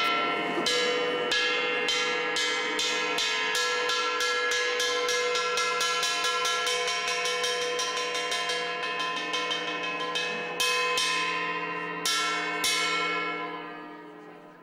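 Ringing metal percussion struck over and over, each stroke leaving a bright bell-like ring. The strokes start slowly, speed up into a fast roll, then slow to a few last strikes and die away near the end, in the accelerating roll typical of Tibetan Buddhist ritual music.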